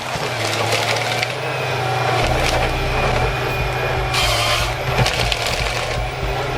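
Tree-felling machine's engine running steadily while wood cracks and splinters as the machine works a trunk, with a louder burst of noise about four seconds in.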